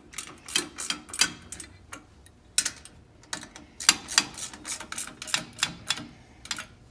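Hand tools working bolts on the metal frame of an INNOVA longarm quilting machine's carriage: a wrench and an Allen key clicking and tapping against the bolts and frame as the bolts are tightened back up. The clicks come irregularly, several a second, in small clusters.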